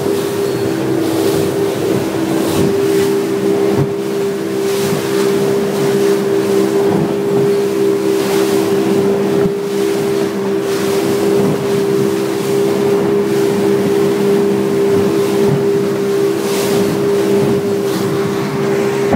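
Motorboat engine running steadily under way, a constant hum, with water rushing and splashing along the hull in surges.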